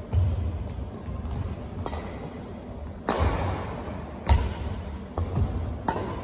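Badminton rally: a racket striking a shuttlecock about five times, roughly a second apart, each hit echoing briefly in the hall, over the thuds of players' footfalls on the court.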